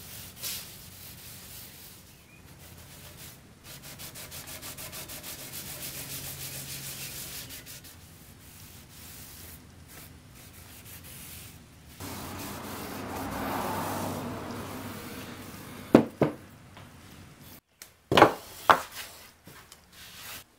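A cloth rag rubbing Danish oil into bare wood in quick back-and-forth strokes. A few sharp knocks come near the end.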